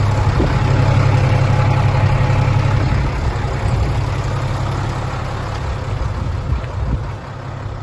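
Mitsubishi 6D16 six-cylinder diesel engine of a dump truck idling steadily. It fades a little near the end.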